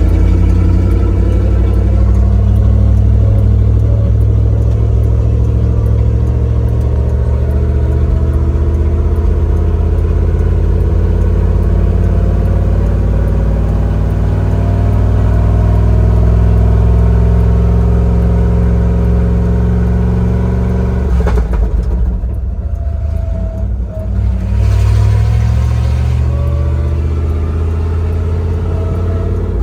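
A 1968 Ford F-250 Highboy 4x4 truck's engine running under way, its pitch slowly rising and falling through the gears. About two-thirds of the way in the engine note drops and a rough, rattly patch lasts a few seconds before the engine pulls steadily again. This is the bad sound the truck makes when shifting.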